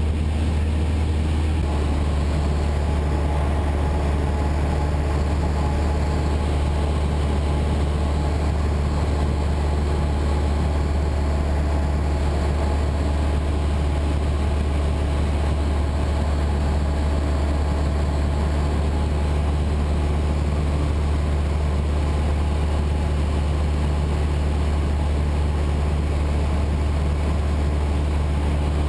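Light aircraft's engine and propeller in cruise flight, heard inside the cabin as a steady, loud drone.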